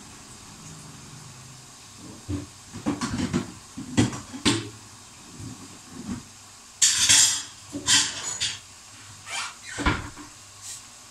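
Kitchen clatter of dishes, pots and metal utensils: a run of knocks and clinks, with a brief rush of noise about seven seconds in.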